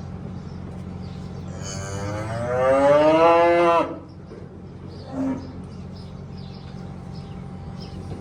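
Beef heifer mooing: one long call about two seconds in that rises in pitch and lasts about two seconds, then a short low moo a second later.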